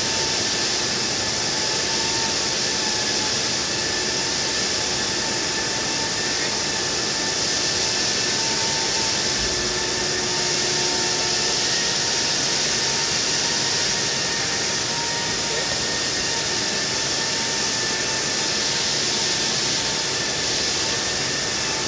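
Granite CNC router spindle spinning a diamond tool with a steady whine, while an abrasive dressing stick is swept against the diamonds and makes a steady grinding hiss as it knocks the glaze off them.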